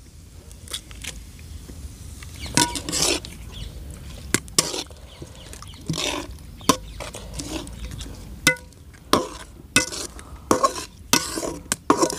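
Eggs cracked into an aluminium pan of onions and chillies over a wood fire, then a metal spatula scraping and stirring the mixture against the pan: a run of separate sharp clicks and short scrapes.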